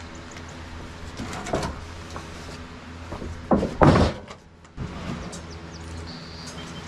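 Freshly sawn boards scraping as they are dragged off the sawmill and knocking against lumber, with a loud wooden clatter a little past halfway. A small engine runs steadily underneath and drops out briefly just after the clatter.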